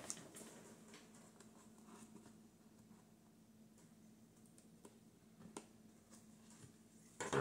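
Scissors trimming the edge of a cardboard box flap: a few faint, scattered snips and clicks, the clearest a little over halfway through, over a low steady hum.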